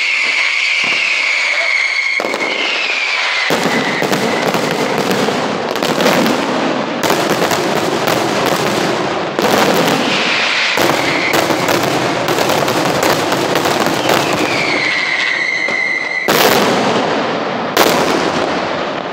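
Daytime fireworks display: whistling tones that glide down in pitch, then a dense barrage of sharp bangs and crackling that keeps going, with two heavy reports near the end.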